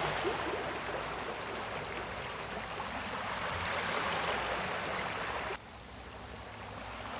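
Recorded sea waves washing in as a steady rushing wash that swells gently, falls away abruptly about five and a half seconds in, then builds again.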